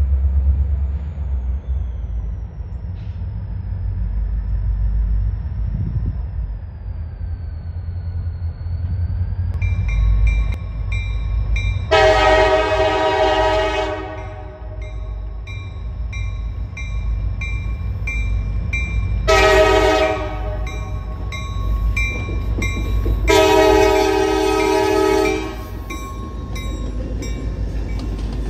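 EMD SD40-2 diesel locomotives rumbling as they approach and pass. The lead unit sounds its air horn three times: a long blast, a short one, then another long one.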